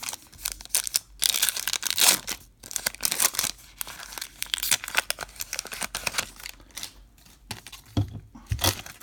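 A trading-card pack wrapper being torn open and crinkled, crackling most densely in the first few seconds, then thinning to scattered rustles. Two soft thumps near the end.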